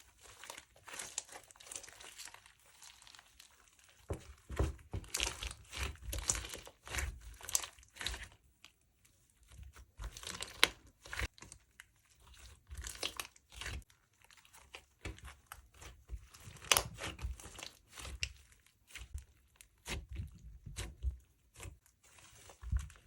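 Slime being squeezed, stretched and pressed by hand, giving an irregular run of small clicks, pops and crackles.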